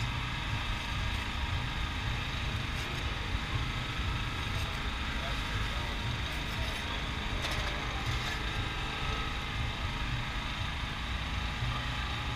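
Steady low rumble with background voices, and a few faint scrapes of a metal spatula on the steel ice cream plate.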